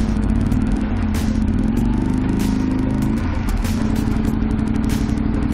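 Honda Varadero 125's small V-twin engine running at low speed as the motorcycle rolls to a stop, then idling steadily. Scattered sharp ticks sound over the engine throughout.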